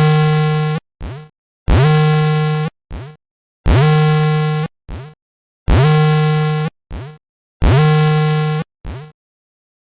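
Electronic alert tone from earthquake-warning software: a buzzy, harsh tone about a second long followed by a short blip, repeating five times about every two seconds.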